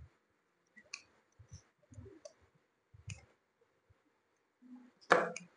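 A few faint, scattered clicks and taps of a pencil and metal straight edge being handled on a wooden board while marking out, with a much louder sudden sound near the end.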